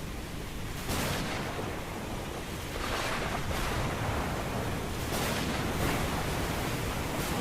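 Ocean surf: a steady wash of waves, swelling about a second in and again around three seconds in as waves break.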